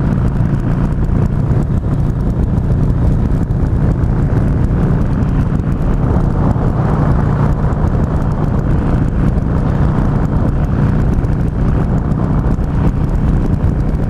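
Harley-Davidson Sportster 883R's air-cooled V-twin running steadily at cruising speed on the road, with wind noise over the microphone.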